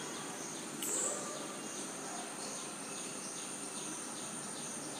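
Insects chirping faintly in the background: a steady high-pitched trill with evenly repeated chirps, and a brief louder sound about a second in.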